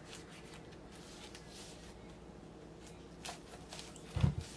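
Faint rustling, crinkling and scratching of fingers working at the shrink-wrap on a vinyl LP jacket, with one loud dull thump a little after four seconds in.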